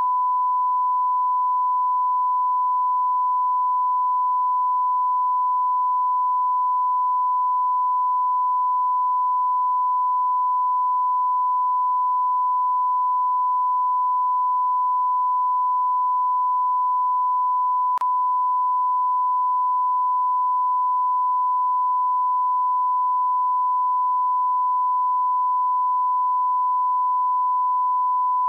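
Continuous 1 kHz sine-wave test tone: a single pure, steady pitch at constant level. It is the line-up tone broadcast with a television colour-bar test card as an audio reference.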